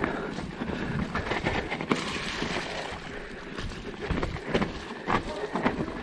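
Mountain bike rolling fast down a wet, rooty trail: wind rushing over an action camera's microphone, with tyre noise and a scattering of sharp knocks and rattles as the bike hits roots, the sharpest about two seconds in.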